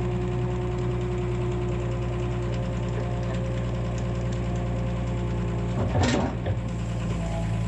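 Excavator's diesel engine running steadily, with a short burst of noise about six seconds in.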